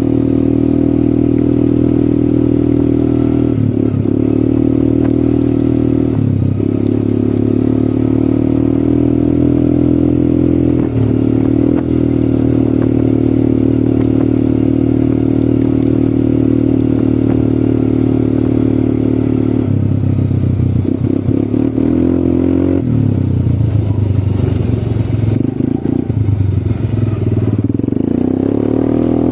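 ATV engine running under way at a steady pitch. The note breaks briefly a few times, drops lower about 20 seconds in, and then rises and falls unevenly toward the end.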